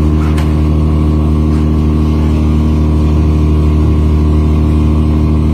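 A fishing boat's engine running steadily at a constant speed with a deep drone. A couple of faint knocks come in the first two seconds.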